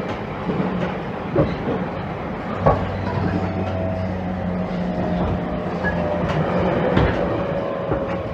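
JR Kyushu 813 series electric train (Toshiba GTO-VVVF motor car) running, heard from inside the car: a steady drone of motors and running gear, with sharp clacks of the wheels over rail joints a few times.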